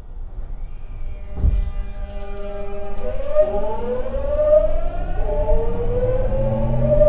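Tokyu 9000 series train's early Hitachi GTO-VVVF inverter and traction motors pulling away from a standstill, heard inside the car. First comes a whine of steady tones, then from about three seconds in several tones rise together as the train speeds up. There is a low thump about a second and a half in.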